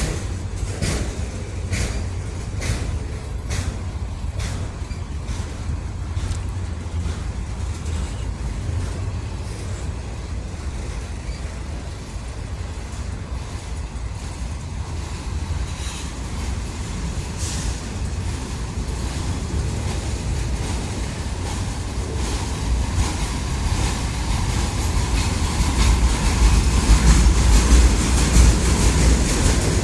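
Freight train rolling past, its wheels clicking over rail joints about twice a second at first, then a steady rushing rumble that grows louder toward the end, with wind buffeting the microphone.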